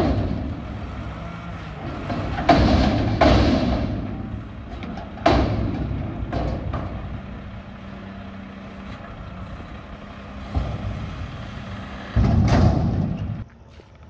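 Mack front-loader garbage truck with a McNeilus body dumping a dumpster: the diesel engine runs under the hydraulics while the steel container bangs several times as it is tipped and shaken over the hopper. A steady hydraulic drone follows as the arms lower the empty container, and a loud clattering thud comes near the end.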